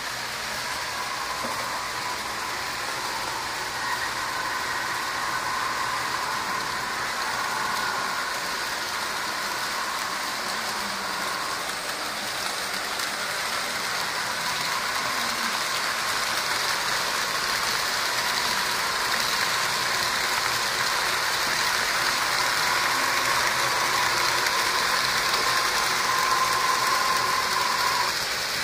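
HO scale model train running on the layout: a steady whirring hiss of the motor and wheels on the track, with a faint steady whine, slowly growing louder.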